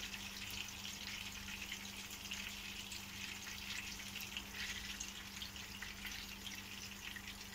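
Potato-pancake batter sizzling faintly in hot sunflower oil and butter in a frying pan as spoonfuls are laid in, with scattered small crackles of spitting oil. A steady low hum runs underneath.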